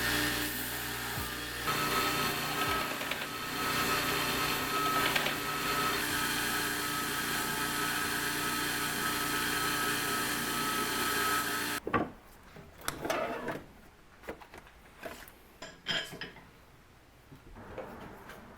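A knife-grinding power tool, most likely a belt grinder, runs steadily as the edge bevel is ground into a hardened Damascus steel chef's knife blade. It cuts off abruptly about two-thirds of the way through, leaving quieter scattered rubbing and handling knocks.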